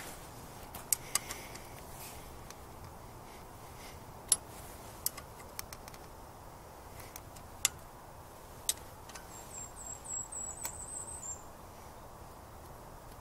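Scattered sharp metallic clicks of a hand wrench knocking against the bolts and aluminium housing of a Johnson 9.5 HP outboard's lower unit. A small bird gives a quick high trill about ten seconds in.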